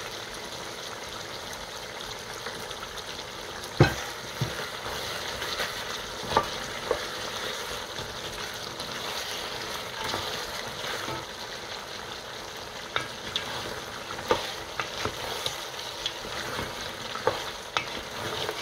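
Lamb pieces and onions sizzling as they fry in a large pot, stirred with a wooden spoon. The spoon knocks sharply against the pot now and then, loudest about four seconds in.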